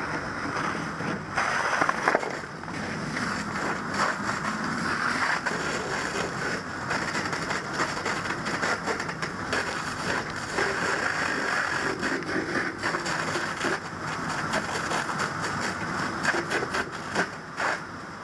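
Fire hose nozzle spraying a steady water stream into a burning doorway: a constant hiss with scattered short crackles.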